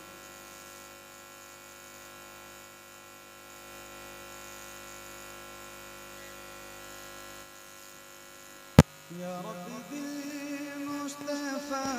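Steady electrical mains hum from a sound system, then one sharp, very loud pop a little under nine seconds in. Right after it a voice begins a drawn-out, wavering sung line of a naat.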